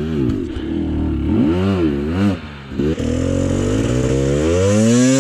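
KTM enduro motorcycle engine revved in short bursts, its pitch rising and falling, then held in one long rising rev through the second half that drops away at the end: clutch-and-throttle work getting the bike up a steep rocky step.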